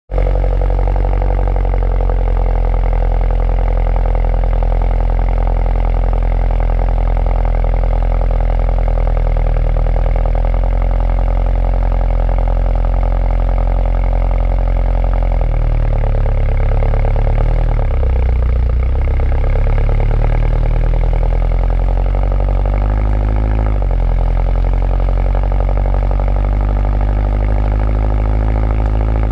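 2011 Mini Cooper S R56 with its stock exhaust, its 1.6-litre turbocharged four-cylinder engine running steadily under way. After about 15 seconds the engine note shifts and rises a few times as the revs change.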